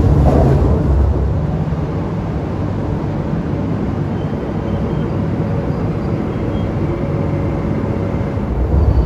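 MTR metro train running at a station, a steady rumble with a faint whine in the middle.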